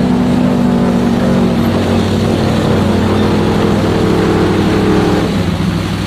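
Off-road 4x4's engine running hard under load as it drives through mud: a steady, loud engine drone, its tone shifting slightly about a second and a half in.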